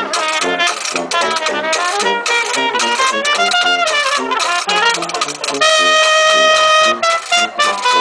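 Street jazz band playing live in New Orleans style: a trumpet carries the melody over a sousaphone bass that pumps out about two notes a second. A horn holds one long steady note about three-quarters of the way through.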